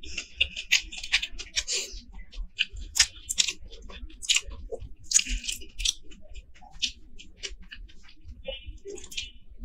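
Eating by hand: chewing and wet mouth smacks, with fingers squishing and mixing rice on a plate, heard as a quick, irregular run of small clicks.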